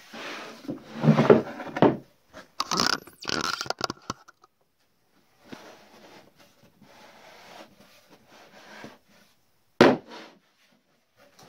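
Plywood panels sliding and scraping against each other, with short wooden clatters and a sharp knock about ten seconds in.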